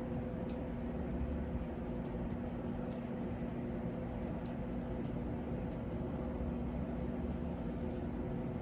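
Steady mechanical room hum, like a fan or air-conditioning unit, with a constant low tone. A few faint small ticks from handling a lipstick are scattered through it.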